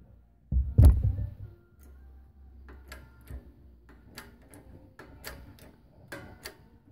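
Shop press pushing a ball bearing, through a socket, into its bore in an aluminium GY6 scooter crankcase. There is a heavy clunk about a second in, then a string of irregular sharp clicks and ticks as the bearing sinks in.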